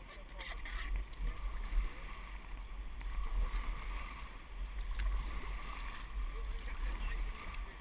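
River water swishing and lapping against the hull of an inflatable raft as it drifts on a calm stretch of river, over a steady low rumble on the action camera's microphone. A single sharp click about five seconds in.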